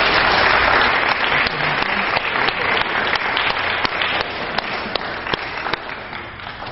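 Audience applauding, dense at first and thinning out to scattered separate claps toward the end.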